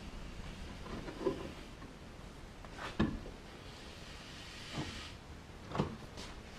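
Ledgestone pieces being handled: a few scattered light knocks and clunks, the sharpest about three seconds in.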